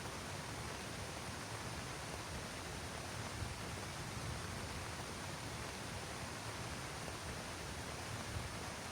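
Heavy rain falling steadily: an even hiss with a low rumble underneath.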